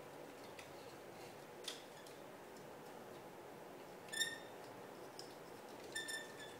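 Plastic joints of a 1/60 Perfect Grade Gundam RX-178 Mk-II model clicking and squeaking as its limbs are moved by hand: a few faint clicks, then two short high squeaks, about four and six seconds in.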